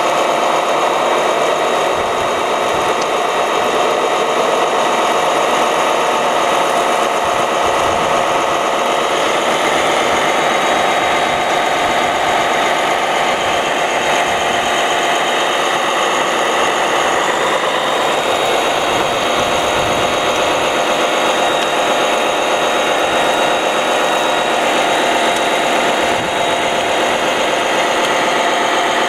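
Radio-controlled model fire trucks running: a steady, even whir of small motors with an engine-like drone, unchanging throughout.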